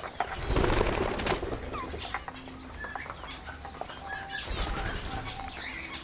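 Indian ringneck parakeets flapping their wings in a brief flurry about half a second in. Scattered short chirps and light clicks follow as the birds settle.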